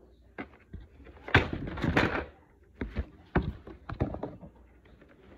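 Hard plastic pieces of a Hot Wheels Super Speed Blastway toy track playset knocking and clicking as they are handled and fitted together: irregular taps, a denser clatter about one to two seconds in, then single clicks.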